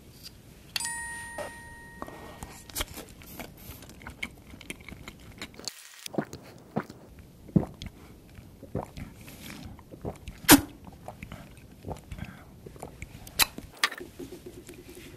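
Close-up mouth sounds of drinking from large plastic syringe-shaped containers: sucking, slurping, lip smacks and sharp plastic clicks, the loudest click about ten and a half seconds in. About a second in, a ringing ding fades away.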